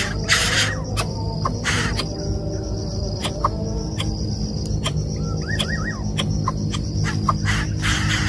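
Steady high-pitched insect buzz with scattered faint ticks and a short wavering bird chirp about five seconds in, over a low steady hum. Two harsh hissing bursts come in the first two seconds.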